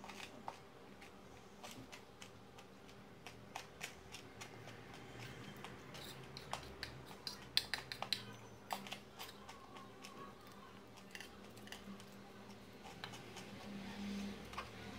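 Metal spoon clinking and scraping against a ceramic plate while scooping up rice: many light, irregular clicks, busiest in the middle.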